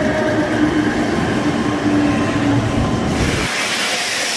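Meitetsu electric train running past, a loud low rumble with a steady hum. About three and a half seconds in, the rumble drops away sharply and a brighter hiss carries on.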